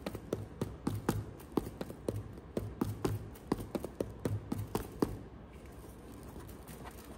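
Fingertips tapping on the tops of small cardboard blind boxes packed side by side in their display case: a quick, irregular run of light taps that stops about five seconds in.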